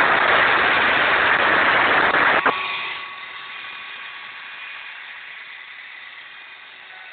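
Homemade CNC router spindle carving wood, a loud steady whir of the cutting bit. About two and a half seconds in it drops sharply, after a click, to a much quieter hum with a faint steady whine that slowly fades.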